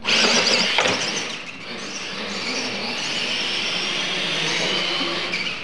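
Two radio-controlled scale monster trucks launching off the start line together: a sudden burst of motor noise, then a steady whine that wanders in pitch as they accelerate across the concrete track.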